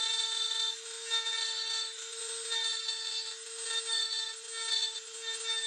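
Dremel rotary multitool whining steadily as its small bit carves grooves into a walnut handle. The cutting gets louder in about five short passes, roughly one a second.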